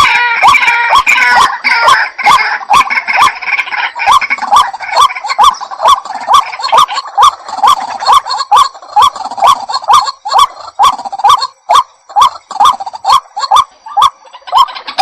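Waterhen (jal murgi) calling, a long run of short repeated notes at about two a second, crowded and overlapping at first and then more spaced out.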